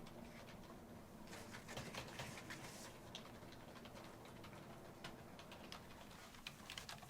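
Quiet room tone with faint, scattered light clicks and taps, coming more often near the end.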